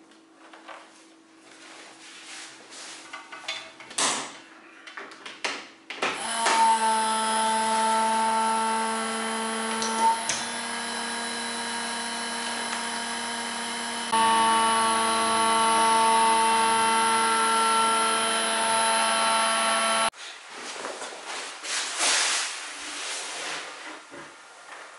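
Rustling plastic vacuum-bag sheeting and a knock, then an electric vacuum pump starts about six seconds in and runs with a steady hum, drawing the air out of the bag. It gets louder about halfway through and cuts off suddenly, followed by light handling noises.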